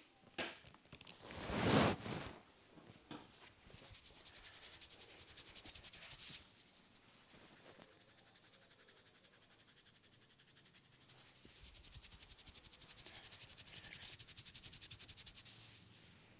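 Hands rubbing briskly over a person's scalp and hair during a head massage, in a fast, even rhythm, with a brief louder rush about two seconds in.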